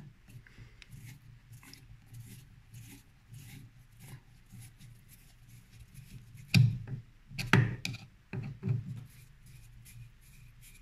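Screwdriver backing a screw out of the metal buttplate of a wooden Mauser 98k rifle stock: faint scraping and small clicks of the blade in the slot, with a few louder sharp creaks a little past the middle. The screw turns out fairly easily, which is put down to penetrating oil.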